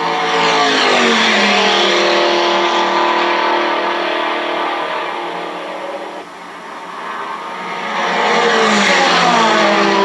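Recorded race cars passing at speed, played from a cassette demonstration tape through a 1977 Panasonic RS-466S boombox's two 5-inch speakers. Two passes, one about a second in and one near the end, each with the engine pitch falling as the car goes by.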